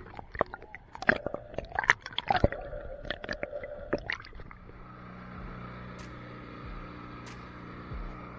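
Watery bubbling and squelching with many sharp pops, giving way about halfway through to a steady hum with a few clicks.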